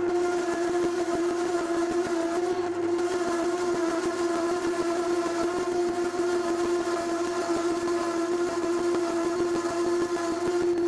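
Lathe parting-off tool cutting into a metal bar with heavy chatter: a steady pitched tone with several overtones.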